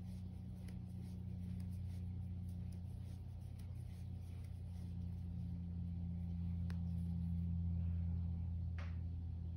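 A steady low hum, with faint soft clicks and rustles from a metal crochet hook and cotton yarn being worked into a foundation chain. Two sharper clicks come near the end.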